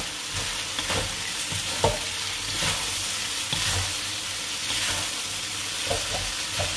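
Rice vermicelli sizzling as it is stir-fried in a metal wok, with a wooden spatula scraping through the noodles and knocking against the pan a few times.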